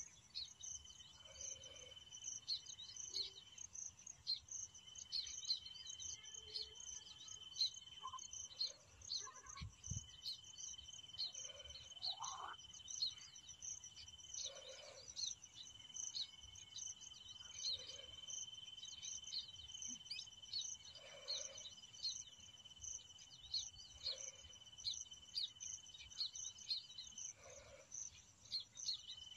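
Male baya weaver calling in a fast, continuous series of short, high chirps, over a steady high trill of crickets.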